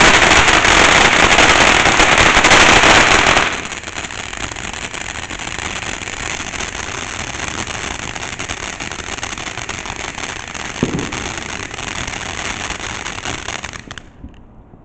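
Ground fountain firework spraying sparks with a steady hissing crackle, loud for the first three or four seconds, then weaker until it burns out near the end.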